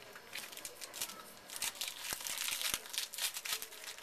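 Trading-card pack wrapper crinkling and tearing as it is opened by hand, a run of sharp crackles that is densest in the middle.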